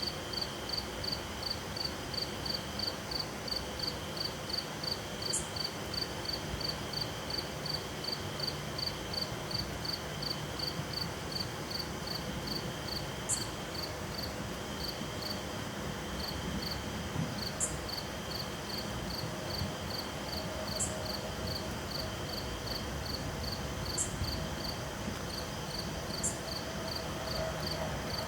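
Summer night insects: a cricket chirping steadily about three times a second over a continuous high trill from other insects, with a short higher chirp every few seconds.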